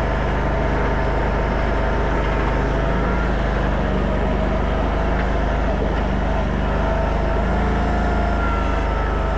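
Mini stand-up skid steer's 739 cc Predator gas engine running at a steady speed, with a thin steady whine above the engine note.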